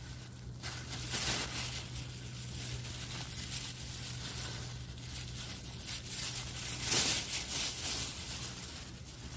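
Thin plastic bag crinkling and rustling as hands open it and dig out boiled millet-and-pea groundbait, the loudest crinkles about a second in and around seven seconds in.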